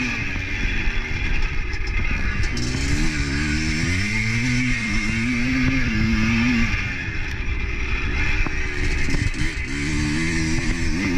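Motorcycle engine running under way, its pitch rising and falling several times with the throttle.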